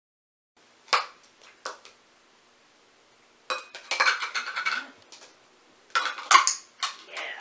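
Hard plastic bowl and its lid knocking and clattering as a dog noses into it for treats: a few sharp knocks, then two longer spells of rattling.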